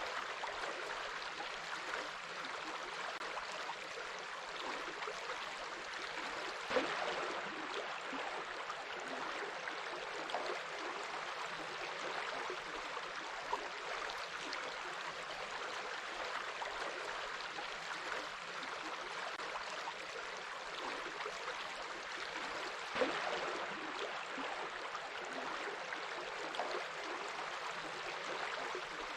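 Stream water flowing steadily, with small gurgles and two brief louder moments.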